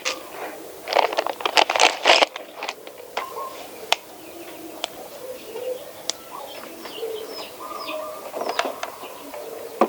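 Doves cooing, with small birds chirping. A quick run of sharp clicks and rattles is the loudest thing, one to two seconds in.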